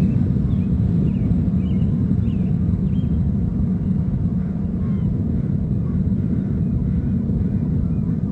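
Steady low rumble of distant boat engines, with faint short bird chirps scattered over it.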